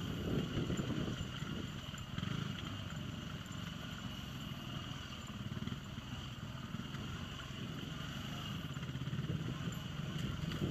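Single-cylinder four-stroke dual-sport motorcycle engine running steadily as the bike rides down a rough track.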